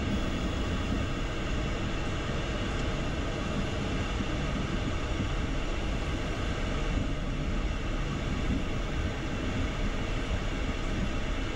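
Steady rumble inside the cockpit of an Embraer Phenom 300E light jet on a slow taxi: its twin turbofan engines at idle and the wheels rolling over the runway surface.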